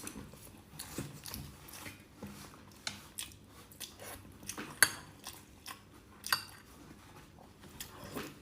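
Eating at the table: chewing and scattered light clinks of utensils against bowls, with a couple of sharper clinks about five and six seconds in.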